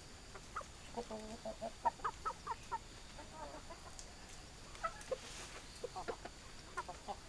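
Hens clucking in short, repeated bursts with brief pauses between them.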